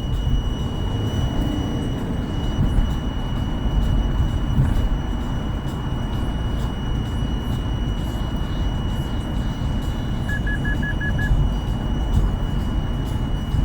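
HVAC blower motor of a 2014 Subaru Forester (SJG) running with an abnormal noise: a steady low rumble with a thin, constant high whine over it. About ten seconds in, a short run of six quick beeps sounds.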